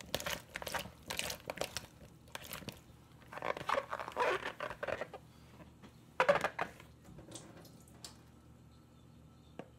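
Salted daikon radish cubes handled in a bowl: squeezed by hand and tossed, a run of short clicks and wet rustles, mostly in the first half, with another brief burst about six seconds in before it quietens.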